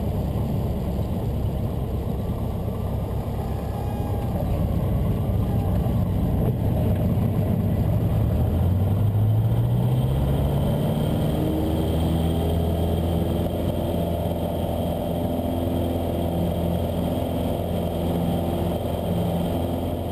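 Cessna 150's four-cylinder engine running at full takeoff power with the propeller turning. The engine note climbs about eight to ten seconds in as the aircraft gathers speed, then holds steady.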